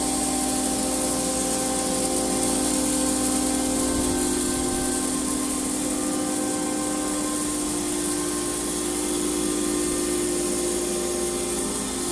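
CNC router running with a steady machine whine and noise, holding one pitch throughout.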